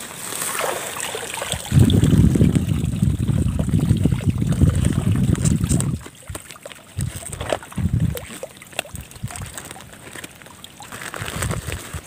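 Water sloshing and splashing: a heavy, dense run of it starting about two seconds in and lasting some four seconds, then quieter, scattered splashes.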